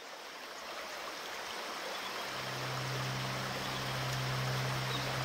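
Rushing water, a steady hiss of flowing river water that fades in and grows louder. A low held note joins about two seconds in.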